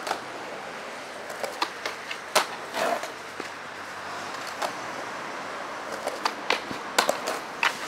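Skateboard on a street: a steady hiss of wheels rolling, broken by a string of sharp clacks and knocks of the board and the skater's shoes hitting the pavement, with the loudest ones about two and a half seconds in and again around seven seconds.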